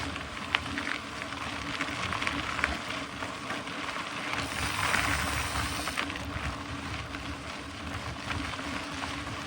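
Mountain bike rolling along a trail: steady tyre noise over the ground with scattered small clicks and knocks, and wind rumbling on the microphone.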